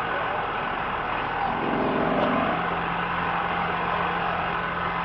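An engine running steadily with a constant low hum, with faint voices.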